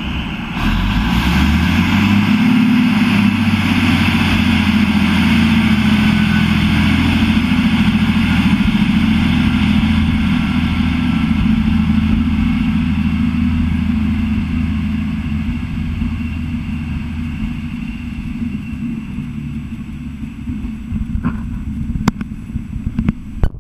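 Class 153 diesel railcar pulling away: its underfloor Cummins six-cylinder diesel opens up about a second in and rises in pitch as it accelerates. It then holds a steady drone that slowly fades as the railcar draws off. A few sharp clicks near the end.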